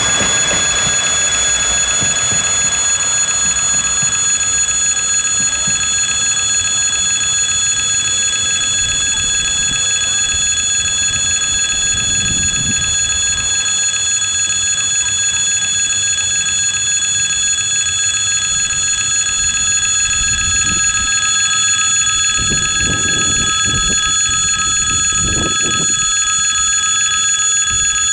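Level-crossing warning bell ringing steadily, a continuous high ringing that doesn't change. For the first few seconds the low rumble of an RA2 diesel railcar moving away fades out under it, and a few short low rumbles come later on.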